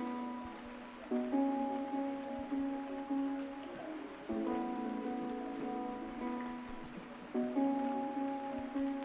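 Instrumental background music, with a new chord struck about every three seconds.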